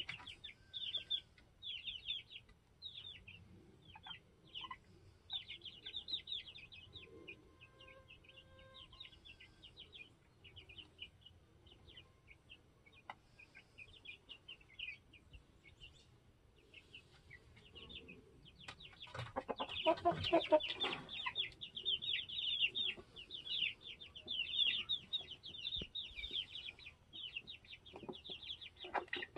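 Baby chicks peeping rapidly, thinning out for a stretch in the middle; chicks mostly stop chirping when they are paying attention. About 19 seconds in, an adult chicken clucks loudly for a couple of seconds and the chicks' peeping picks up again.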